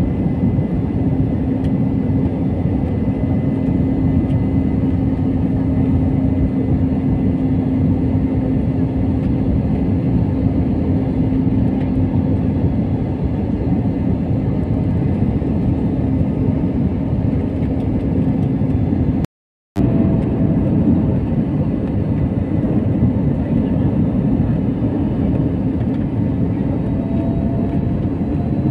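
Airbus jet cabin noise at a window seat beside the wing: the steady rumble of the turbofan engine and airflow in flight, with a steady hum that fades about halfway through. The sound cuts out for a moment about two-thirds of the way in, then resumes.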